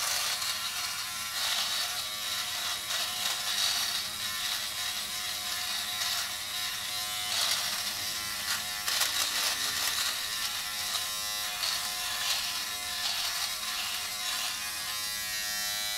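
Philips Norelco Multigroom 7000 trimmer with its face-trimmer head running against the skin, buzzing and crackling as it cuts thick stubble on the neck and cheek. Near the end the buzz settles into a steadier hum.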